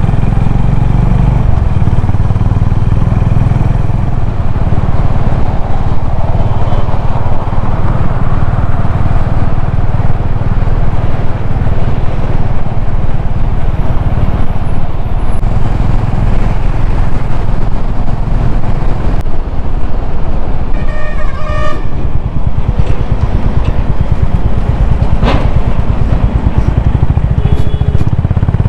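Honda H'ness CB350's single-cylinder engine and exhaust running at a steady cruise, a dense low thump. A vehicle horn honks briefly about three-quarters of the way through.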